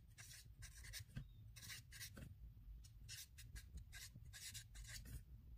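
A felt-tip marker writing on paper: a run of short, faint scratching strokes as the words are written letter by letter.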